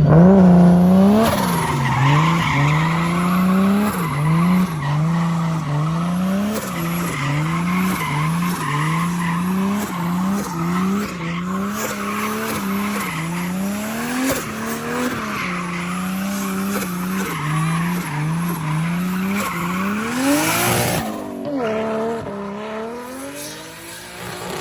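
Turbocharged Toyota 1JZ VVTi inline-six with a large Pulsar G30-660 turbo and external wastegate, revved hard over and over, its pitch climbing and dropping about once a second, with turbo flutter on each lift-off. Tyres squeal throughout. A loud rushing burst comes about 21 seconds in, after which the engine settles lower.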